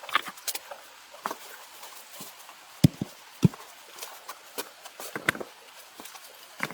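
Irregular knocks and clicks from hands-on work, with two louder thuds about three seconds in.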